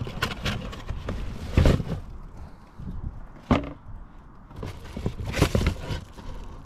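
Handling noises from timing belt kit parts: rustling with a few sharp knocks, three louder ones spread through, as the parts are picked up and set down.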